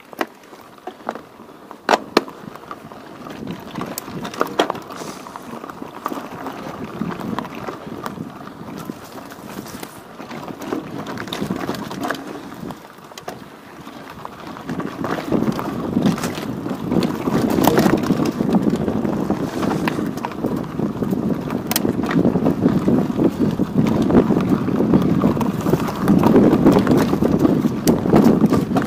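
Wind buffeting the microphone of a chest-mounted Xiaomi YI 4K action camera, a rough rushing noise with scattered knocks and rattles, growing louder from about halfway through.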